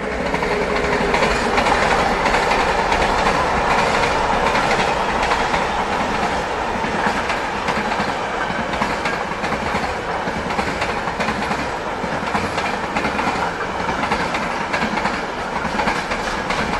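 Freight train of open coal wagons and flat wagons loaded with rails, hauled by an ET22 electric locomotive, rolling past with a steady clickety-clack of wheels over the rail joints.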